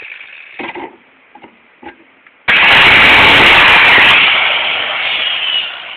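Angle grinder with a cutting disc switched on suddenly, running loud for about a second and a half, then spinning down. A few light knocks come before it.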